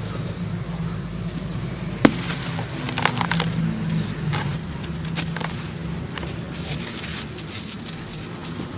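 Molded charcoal-and-sand chunks crumbling in water, giving off scattered sharp crackles: one loud crack about two seconds in and a quick cluster a second later, over a steady low hum.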